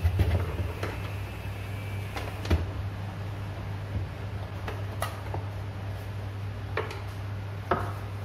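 Scattered clicks and knocks of a desktop computer power supply (SMPS) being handled on a bench and its cable connectors pushed in, over a steady low hum.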